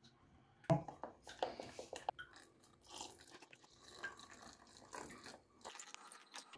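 Spoon scraping and clicking against a glass mixing bowl as mango pulp and milk are stirred together, in short irregular strokes.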